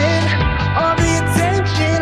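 Background pop-rock song playing with a full band.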